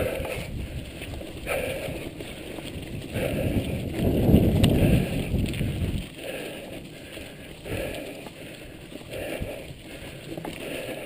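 Mountain bike ridden over a rough dirt and gravel trail: tyres rumbling and crunching over the ground. The rumble swells loudest for a couple of seconds midway.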